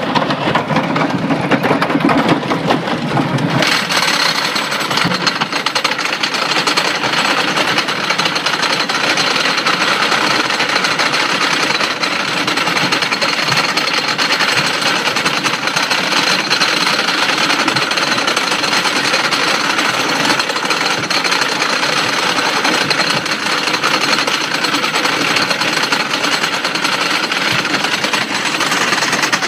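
Lift chain of a Great Coasters International wooden coaster (Lightning Racer) pulling a Millennium Flyer train up the lift hill. About four seconds in it settles into a steady, rapid mechanical clatter that continues as the train climbs.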